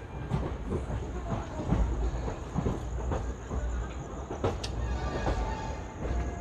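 Passenger express train running on the track: a steady low rumble with irregular clatter and knocks from the wheels and coaches.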